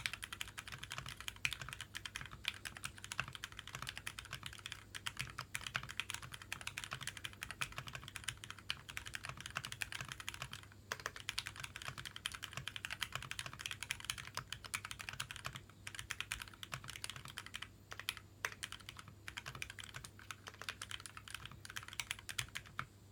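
Steady fast typing on a custom mechanical keyboard with lubed Greetech Black linear switches, a dense run of keystrokes with a couple of brief pauses. The switches have 55 g Sprit springs, Tribosys 3204 lube and films, on a brass plate dampened with Dynamat.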